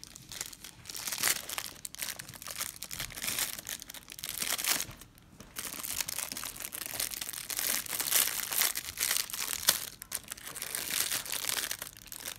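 Toy packaging being crinkled and torn open by hand, an irregular crackling with a short pause partway through.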